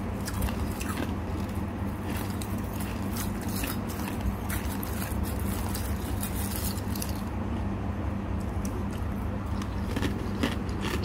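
Defrosted freezer frost squeezed and crumbled by hand in a steel bowl: scattered soft crunches and crackles over a steady low hum.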